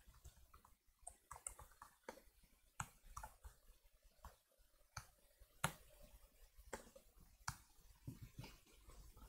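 Faint, sparse keystrokes on a laptop keyboard: irregular single clicks with gaps between them, as code is typed slowly.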